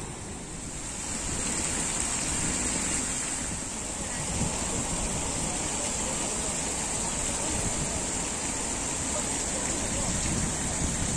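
Open-air wind buffeting a phone microphone, a restless low rumble under a steady high hiss that comes in about half a second in.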